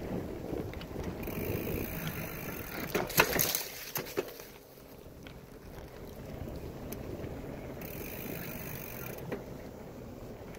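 Bicycle riding along a rough dirt trail: steady tyre and rolling noise with scattered rattles and clicks, and a burst of loud knocks about three seconds in.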